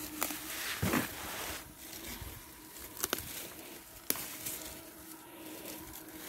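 Footsteps and rustling on a dirt forest track: a few scattered crunches and sharp clicks, the loudest about a second in, with clicks again around three and four seconds in, over a faint steady hum.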